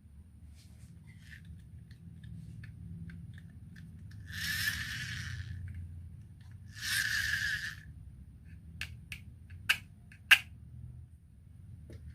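Marbles rolling down a wooden HABA marble run: a low rolling rumble with light clicks, two rattling rushes about four and seven seconds in, and a few sharp clacks near the end.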